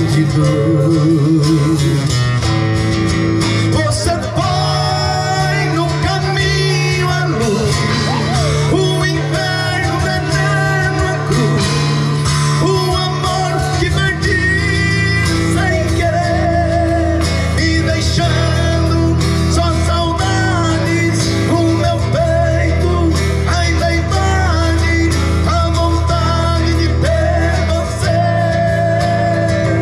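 Music: a song with a singing voice over guitar and a steady bass line.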